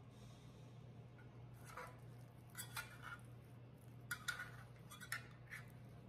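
A small metal offset spatula clicking and scraping against the cups of a metal muffin pan as baked pancakes are pried out: a handful of faint, light clicks in two clusters, the sharpest a little after four seconds, over a steady low hum.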